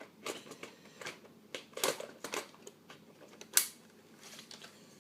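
Irregular sharp plastic clicks and knocks from handling a Compaq Evo N400c laptop and its parts, a quick cluster in the middle and one louder knock about three and a half seconds in.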